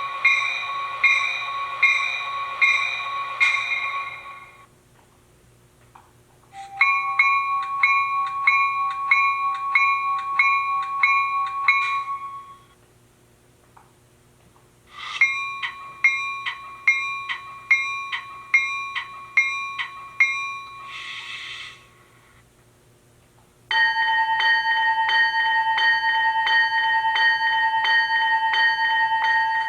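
Recorded diesel locomotive bells played from an ESU LokSound sound decoder through an HO-scale SD40-2's small speaker. EMD steel bells ring in three separate runs of evenly paced strikes, a little over one a second, with short pauses between them and a brief hiss at the end of the third. Near the end a bronze bell takes over, ringing faster with a steadier, lower tone.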